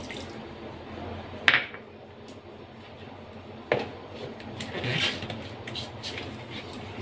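Kitchenware being handled: two sharp clinks, about a second and a half in and near four seconds, then a short scraping rub as the plastic lid is pressed onto the steel mixer-grinder jar.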